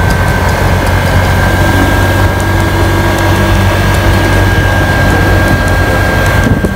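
Steady running noise of a moving road vehicle, heard from on board: engine drone and road rumble with a thin, steady high whine over it.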